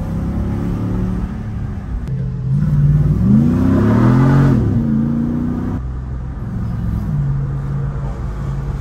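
The Jeep Gladiator's swapped-in 392 HEMI V8 (6.4-litre) running under way, revving up and back down about three seconds in. The engine note changes abruptly about six seconds in and then runs steady.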